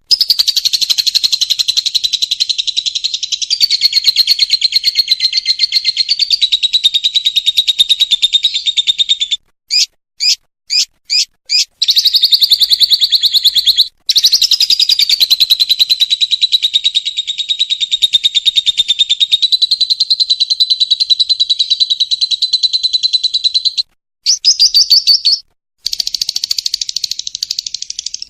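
Lovebird's long, rapid chattering 'ngekek' song: long unbroken runs of fast, high chatter, broken about a third of the way in by five short separate calls, with a couple of brief pauses later on.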